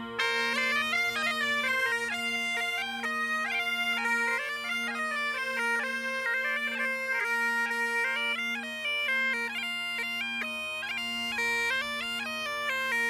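Breton bagpipe and bombarde duo playing a quick, stepping tune over the bagpipe's steady drone.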